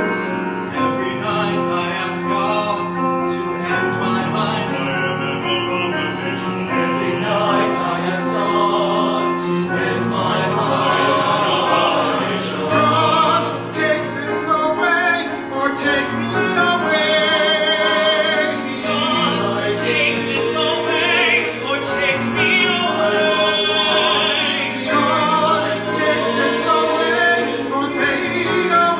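Men's chorus singing a song in harmony on a concert stage.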